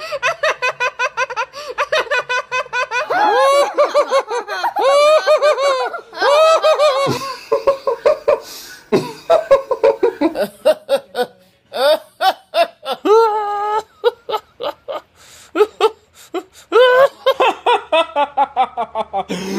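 Several people taking turns laughing loudly in put-on laughs, each a run of quick, evenly spaced "ha" syllables. The laugh changes abruptly a few times as one laugher replaces another.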